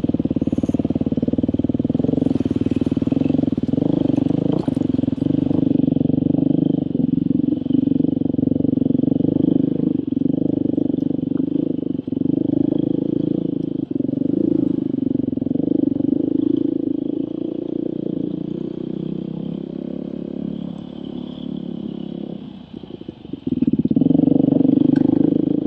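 Dirt bike engine running steadily under throttle while riding a trail. It eases off and drops briefly about three quarters of the way through, then picks back up.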